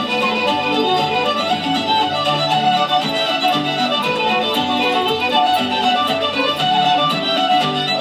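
Traditional Irish dance music led by a fiddle.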